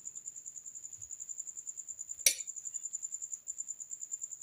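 A cricket chirping steadily, a high thin trill pulsing fast, with one sharp click a little past two seconds in.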